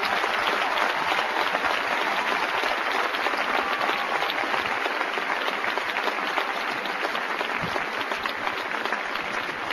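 Large audience giving a standing ovation: steady, dense applause.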